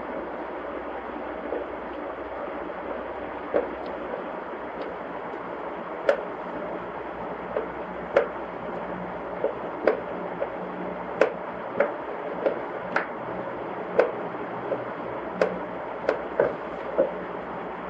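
Cats' paws and claws tapping and clicking irregularly on wooden floorboards as two cats spar, about twenty light taps scattered over a steady whooshing background noise.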